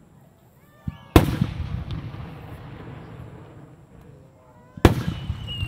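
Aerial firework shells bursting: a small pop, then two loud booms about three and a half seconds apart, each trailing off in a rumbling echo.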